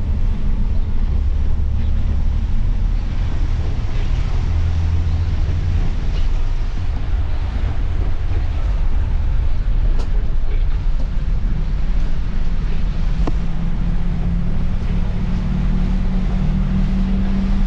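Inside a moving coach bus in heavy rain: a steady low engine and road rumble under an even hiss of tyres on the flooded road and rain on the windscreen, with a couple of faint clicks in the middle.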